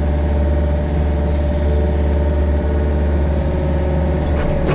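Mini excavator's diesel engine running at a steady speed.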